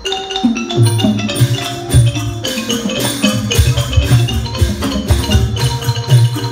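Instrumental interlude of Thai likay music between sung verses: a fast melody of quickly struck notes over regular drum beats, with no singing.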